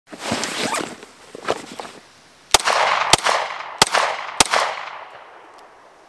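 Rustling and handling of a nylon sling bag as a pistol is drawn from it, then four pistol shots about 0.6 s apart, each followed by a short echoing tail.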